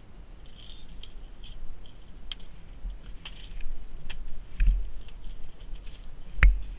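Light clicks and small rattles of handling, with a sharp knock and low thud near the end.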